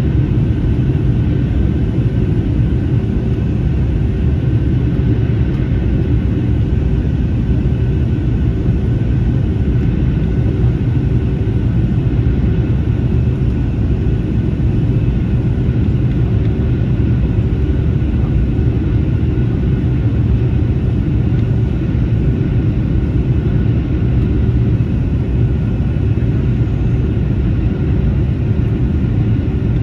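Steady cabin noise of an Airbus A321neo airliner in flight, heard from a window seat: a deep, even rumble of airflow and engines with a few faint steady high tones above it and no change throughout.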